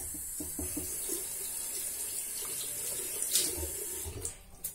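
Sink tap turned on and running water into the basin, starting suddenly and stopping near the end, with a couple of short knocks near the end.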